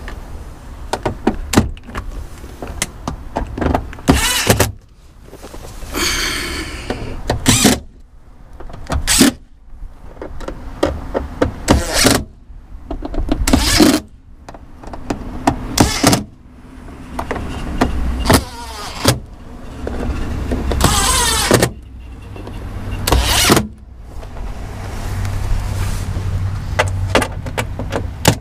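Cordless drill-driver running in short bursts, some with a whine, as it drives screws into the metal cover of a hybrid battery pack, with clicks and knocks between bursts.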